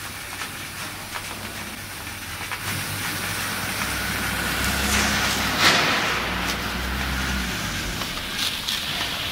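Coffee-bean packaging line running: the steady mechanical hum and hiss of a multihead weigher feeding a vertical form-fill-seal bagger. A low rumble swells twice, and a brief sharp hiss comes about halfway through.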